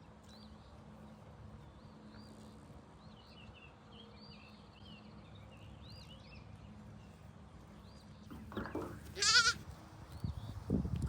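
A goat bleating: a loud wavering call about a second long near the end, then a lower call just before the end.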